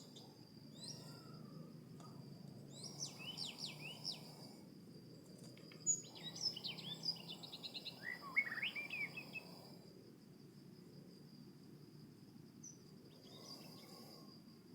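Songbird calls: quick, downward-sweeping chirps in three bursts through the middle, over a steady high-pitched insect trill.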